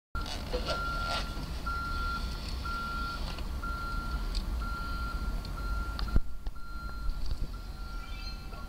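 Backup alarm on a Chevrolet hi-rail pickup truck beeping about once a second, each beep about half a second long, over a low steady rumble, with a single sharp knock about six seconds in.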